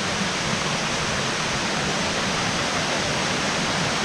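Rushing water of a fast-flowing forest stream or waterfall: a steady, even rush with no break.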